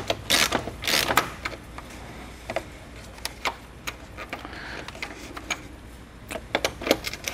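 Scattered sharp clicks and light knocks from hand tools and plastic parts as a retaining screw is undone and a trim piece is worked loose from a BMW F10 M5's front bumper. The clicks are loudest in the first second or so.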